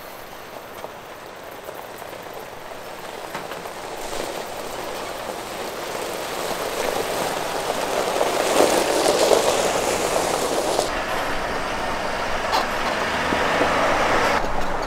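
Chevrolet Silverado pickup driving along a gravel track: engine and tyres crunching over gravel, growing louder as it approaches and loudest as it passes about eight to nine seconds in.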